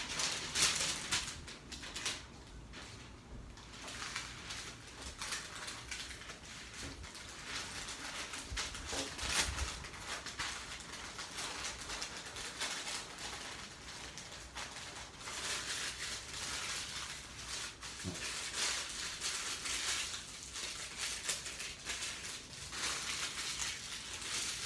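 Sheet of white wrapping paper rustling and crinkling in irregular bursts as a burrito is rolled up in it by hand.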